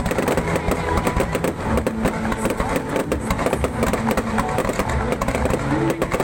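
Fireworks going off in rapid, dense bangs and crackles.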